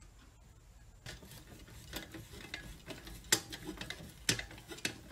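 Bolts being tightened with a hand tool on an aluminium mounting tray: faint, irregular small metal clicks and ticks starting about a second in, with a sharper click a little past three seconds and another past four.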